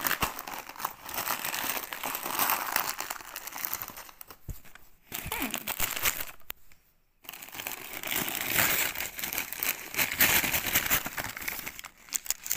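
Christmas wrapping paper crinkling and tearing as a present is unwrapped by hand. It stops briefly about six and a half seconds in.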